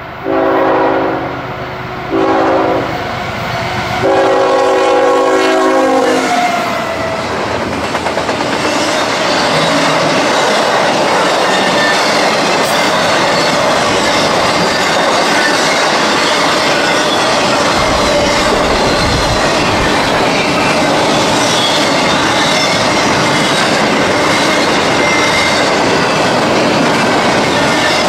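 Locomotive air horn sounding three blasts, two shorter ones followed by a longer one about four seconds in, as the train nears. The train then passes close by, its wheels clattering steadily over the rail joints to the end.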